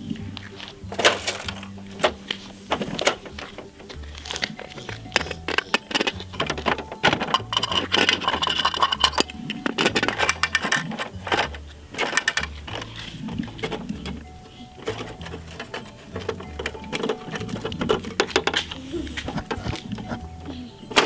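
Background music with a repeating bass line, over scattered sharp clicks and knocks of a plastic toy recycling truck being handled, its lid and parts snapping.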